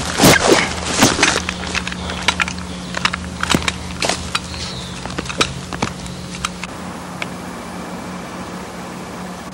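Irregular crackling and snapping of dry twigs and leaf litter, busiest and loudest in the first second and thinning out after about six seconds, over a steady low hum.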